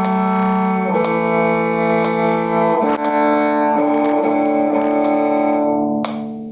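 Bowed string instrument of the violin family playing sustained double stops, two notes sounding together. The pair changes about every second, and the last pair is held and dies away around six seconds in.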